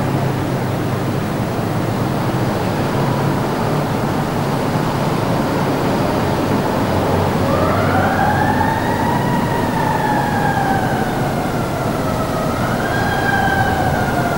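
An emergency-vehicle siren wails over a steady rushing noise. About halfway in it rises, slides slowly down over several seconds, and rises again near the end.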